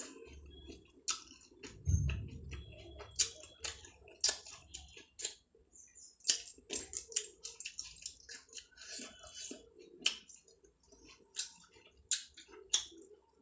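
Chewing and wet mouth sounds of someone eating rice with side dishes: irregular clicks and squishes, with a low thump about two seconds in.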